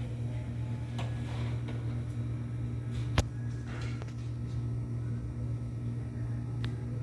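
Steady low machine hum, with a single sharp click a little over three seconds in.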